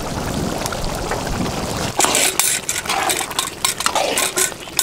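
Mutton keema curry bubbling in a large pan, a steady simmer; about two seconds in it turns to sharp, irregular crackling and spitting as the thickened keema sizzles.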